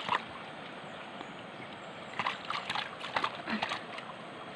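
A quick run of about a dozen hard knocks or clacks, bunched in the second half, over the steady wash of running water.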